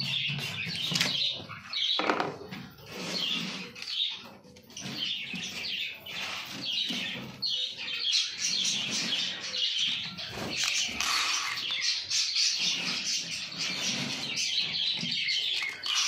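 Pet budgies chattering in a steady stream of rapid high chirps, with birds' wings flapping now and then as grain is put out for them.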